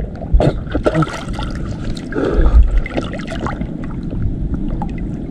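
Water sloshing and trickling, with scattered sharp clicks and knocks of handling, and a low bump a little past two seconds in.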